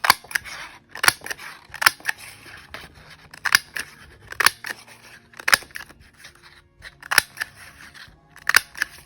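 Craft square hole punch snapping through patterned paper, with sharp clicks about once a second and paper rustling between them.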